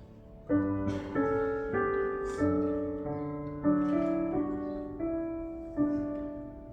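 Piano playing a slow run of chords, a new chord struck every half second to a second and fading after each strike.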